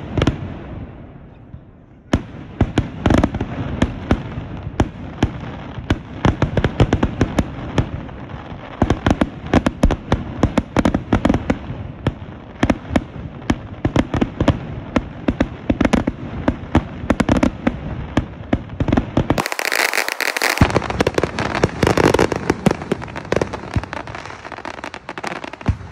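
Fireworks going off: a bang at the start, then after a short lull a dense, continuous run of rapid bangs and crackles, with a brief hiss about twenty seconds in.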